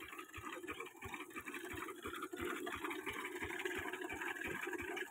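Lister 8 hp single-cylinder diesel engine running steadily while driving a water pump, with a slow, even beat of about four thumps a second.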